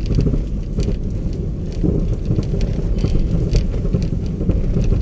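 A vehicle in motion, heard from inside the cabin: a steady low rumble with scattered rattles and knocks.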